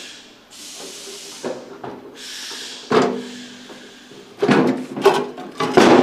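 Steel hand truck rolled onto a steel platform scale and its nose plate pulled out from under a billet aluminum block: scraping in the first half, then several metal clanks, the loudest about three seconds in and near the end.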